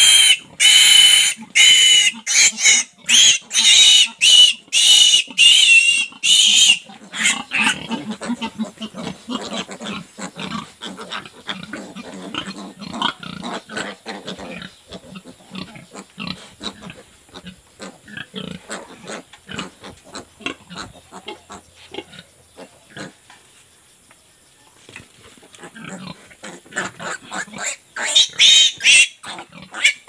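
A piglet squealing loudly in rapid repeated screams while it is restrained for an iron injection, for about seven seconds. Lower pig grunting follows, the pen quietens, and loud squealing starts again near the end as the next piglet is caught.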